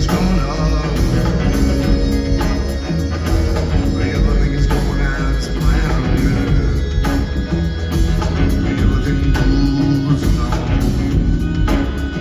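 Rock band playing live in concert: a mostly instrumental passage with heavy bass and drums.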